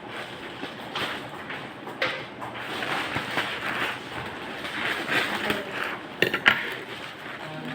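Packaging being handled and opened: repeated rustling with a few sharp clicks and knocks, the loudest a quick cluster about six seconds in.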